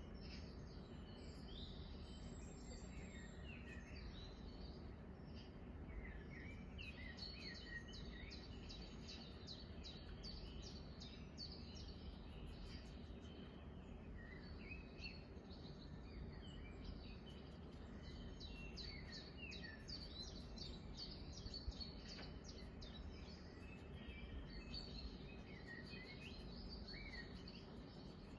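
Small birds chirping, many short calls in quick runs, played back from a video made for cats, over a steady low background hum.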